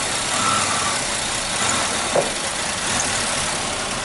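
Car engine idling with a steady loud hiss from a vacuum leak, and a brief thump about two seconds in.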